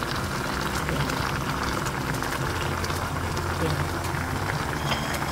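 Pot of coconut-milk vegetable stew boiling: a steady bubbling hiss with faint scattered ticks and a low hum underneath.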